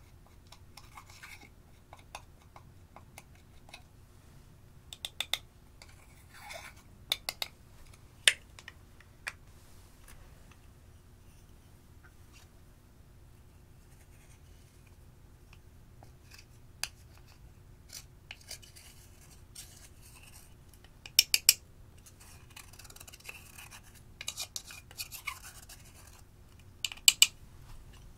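A small metal spatula scraping and chipping pressed eyeshadow out of plastic compacts, with scattered sharp clicks and taps of metal on the compacts, some in quick clusters.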